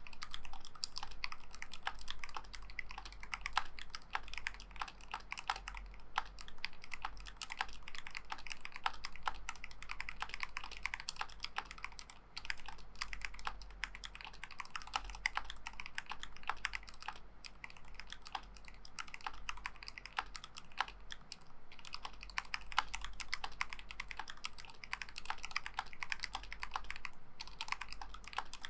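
Fast, continuous typing on a KBD75 custom mechanical keyboard with Tealios V2 linear switches in a brass plate and SHOKO clone keycaps. There are only a few brief pauses between bursts of keystrokes.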